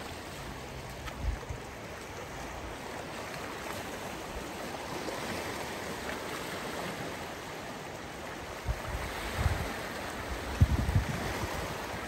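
Lake waves washing onto the shore: a steady hiss of water. Gusts of wind thump on the microphone several times in the last few seconds.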